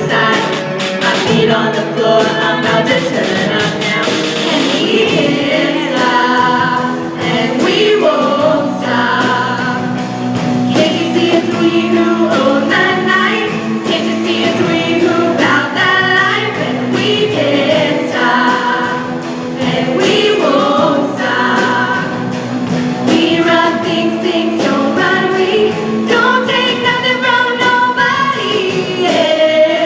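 A group of women singing a pop-song medley together in choir-like harmony. The last chord is held and cuts off right at the end.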